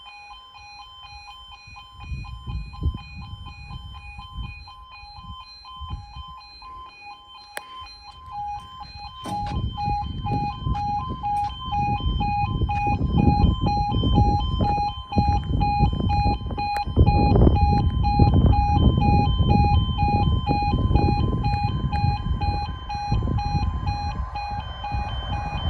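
Level crossing alarm sounding continuously, a two-tone warning with barriers down for an approaching train. A low rumbling noise starts about two seconds in and grows louder from about nine seconds in.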